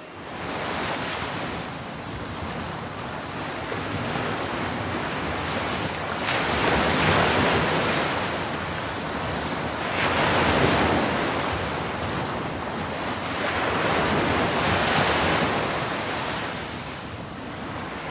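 Ocean waves surging and washing in, rising and falling in slow swells a few seconds apart, loudest three times.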